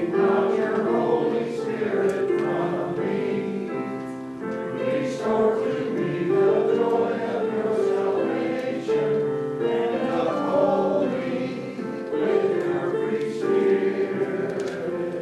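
Church congregation singing together in a hymn, held notes moving from one pitch to the next.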